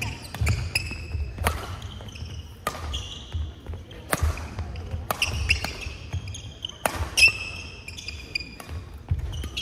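Badminton rally: rackets striking the shuttlecock with sharp cracks about once a second, with shoes squeaking on the court floor and footsteps thudding between shots.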